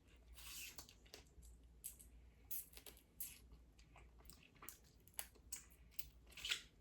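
Faint eating sounds from a seafood boil: scattered small clicks and crackles of chewing and of shellfish shells being handled and pulled apart.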